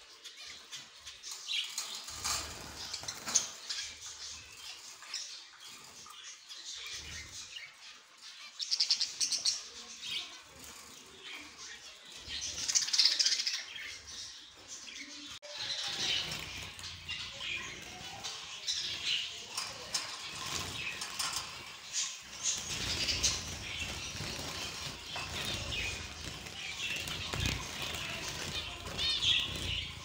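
Many small caged songbirds chirping and twittering over one another, with wing flutters and light clicks among them.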